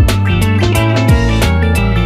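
Background music: a guitar-led song with bass and a steady beat.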